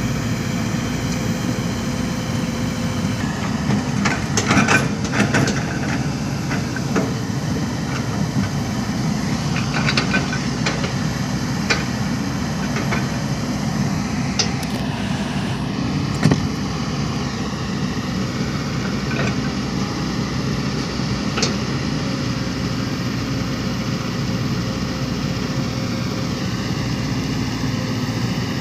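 Heavy diesel construction machinery running steadily, with scattered metallic clanks and knocks, a cluster about four to six seconds in and single loud ones later.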